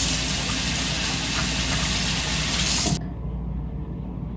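Bathroom tap running in a steady hiss of water, shut off abruptly about three seconds in.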